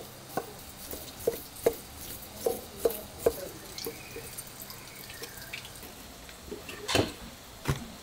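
Kitchen knife slicing raw fish for sashimi on a wooden cutting board, the blade tapping the board in quick, irregular knocks. The taps come thick over the first few seconds, thin out, and the loudest knock falls about seven seconds in.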